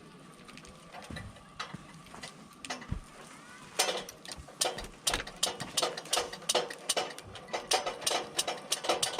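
Campfire wood crackling and popping: a few scattered snaps at first, then dense, irregular pops from about four seconds in.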